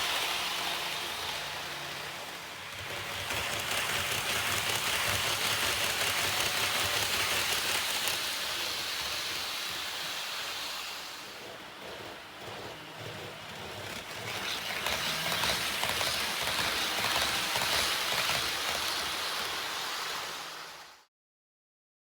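HO gauge model train running on the track, a steady hiss of wheels on rail mixed with motor noise, growing quieter and louder twice before cutting off suddenly near the end.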